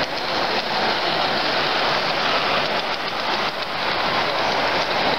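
Large-scale garden-railway model freight train rolling past on its track: a steady rushing clatter of metal wheels over rail with faint clicks.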